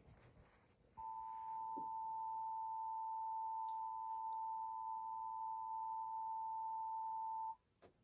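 Emergency Alert System attention tone playing through a TV speaker: one steady electronic tone that starts about a second in, holds for about six and a half seconds and cuts off suddenly.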